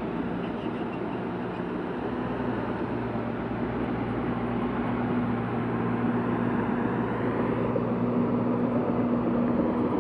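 Diesel engine of heavy earthmoving machinery running steadily under load, a constant low hum over engine and track noise, growing gradually louder.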